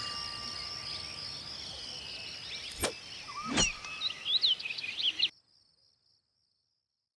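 Bush ambience: a steady, pulsing high insect drone with a few bird chirps and two sharp clicks. The last ring of a chime fades out in the first second or so. Everything cuts off suddenly to silence a little after five seconds in.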